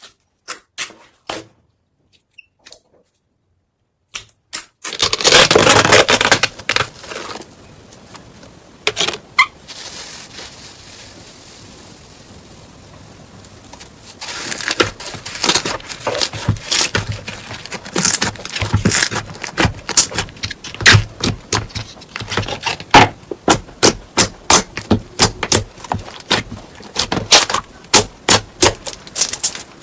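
Slime handled by hand: a short pause near the start, then a loud dense rush of noise about five seconds in, a faint steady hiss, and from about halfway on a long run of rapid, irregular sticky clicks and crackling pops.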